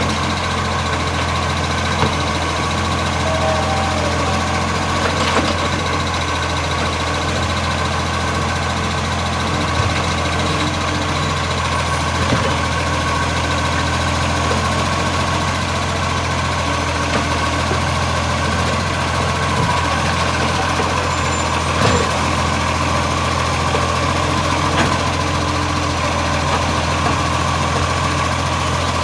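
Garbage truck engine idling steadily, running with an exhaust leak.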